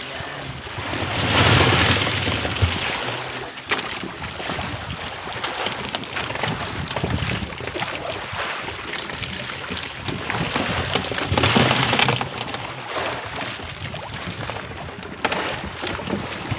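Wind buffeting the microphone over sloshing sea water, swelling louder twice, about a second in and again near the middle.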